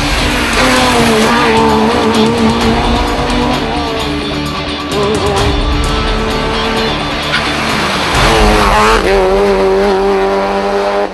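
Rally car engines revving hard through a bend, the pitch dropping as the drivers lift and climbing again as they accelerate away. Near the end one engine rises sharply in pitch, then holds.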